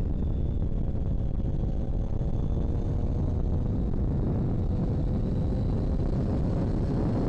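Motorcycle engine running steadily while riding through bends, its faint note drifting slightly, under a heavy low rumble of wind and road noise on the microphone.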